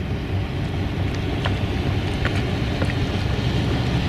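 Steady low rumble of a yacht under way, with wind buffeting the microphone.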